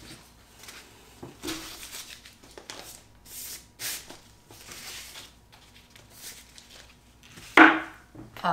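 A wide paintbrush swishing varnish over an oil pastel drawing on paper: irregular soft brush strokes. One short, louder sound near the end.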